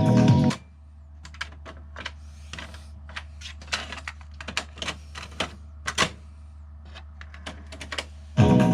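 Music cuts off about half a second in. Then come irregular small clicks and taps, like parts or buttons being handled, over a steady low hum. Music comes back near the end.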